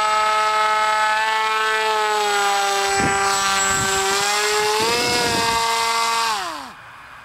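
Powered paraglider trike's engine and propeller droning steadily overhead, the pitch sagging and rising slightly, then winding down steeply near the end as the engine is throttled back.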